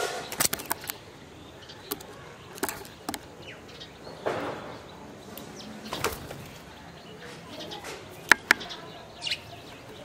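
Spotted doves flapping their wings in short flurries as they flutter up and land, with several sharp taps, the two loudest a little after eight seconds in.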